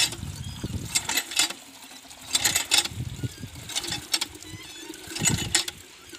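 Cast-iron hand pump being worked by its handle, about one stroke every second and a half, each stroke giving a burst of creaking metal and gushing water into a plastic jug.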